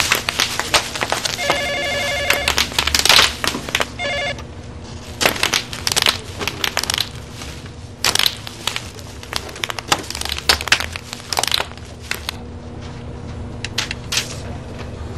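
A telephone rings in short trills twice in the first four seconds, over loud crinkling and crackling of white plastic packing being wrestled and crushed. The crackling thins to scattered clicks near the end.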